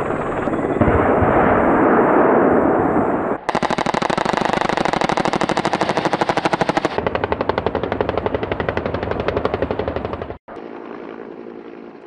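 An AH-1 Cobra attack helicopter's nose-turret gun firing long, rapid bursts of many shots each, after a loud rumble from the range. Near the end, after an abrupt cut, the helicopter's quieter steady running hum.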